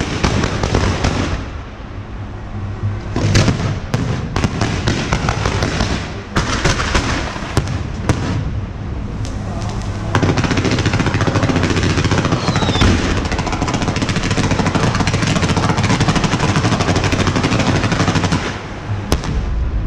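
Firecrackers going off in rapid crackling bursts. A denser, unbroken crackle begins about halfway through and stops shortly before the end.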